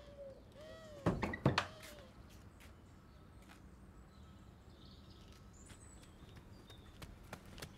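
A door creaking open, its hinge giving short rising-and-falling squeaks, then two or three loud knocks about a second in as it swings open; a few faint clicks follow.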